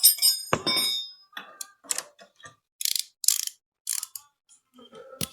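Hand tools on the motorcycle's frame bolts: a ringing metal clink at the start, a knock, then several short bursts of ratchet clicking and a sharp click near the end.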